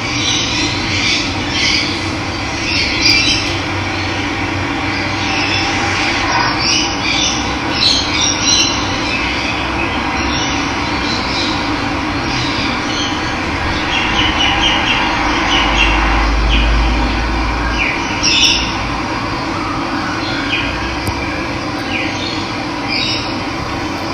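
Steady rush of running water with wild birds chirping and calling over it throughout. A low rumble swells briefly about two-thirds of the way through.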